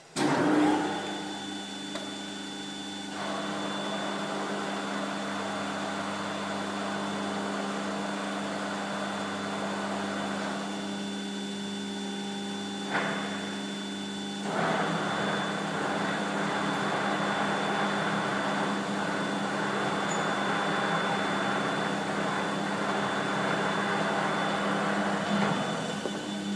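Large-swing faceplate lathe starting abruptly and then running with a steady mechanical hum and whine from its motor and gearing. About 13 seconds in there is a sharp click, and the running grows louder again a second or so later.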